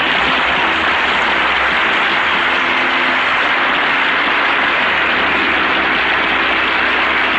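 A large concert audience applauding continuously, a dense, even sound of clapping.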